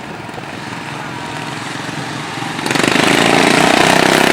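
Engines of racing lawnmowers running together in a steady drone, growing much louder about two-thirds of the way through.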